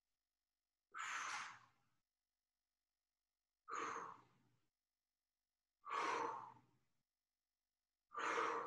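A man's audible sighing exhales, four breaths about two seconds apart, breathing steadily through a stretch.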